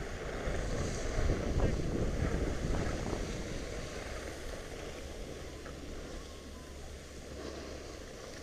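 Wind rushing over the microphone and skis sliding and scraping on packed snow while skiing downhill, louder for the first few seconds and then easing off.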